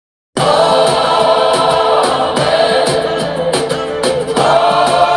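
Choir singing worship music, cutting in suddenly out of silence about a third of a second in and carrying on loudly.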